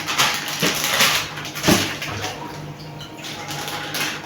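Plastic bags rustling and crinkling as meat is packed for the freezer, with a sharper crackle about halfway through, then quieter handling.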